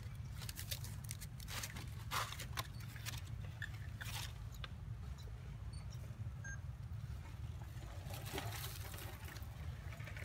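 Outdoor ambience: a steady low rumble with scattered short rustles and crackles, clustered in the first few seconds and again near the end.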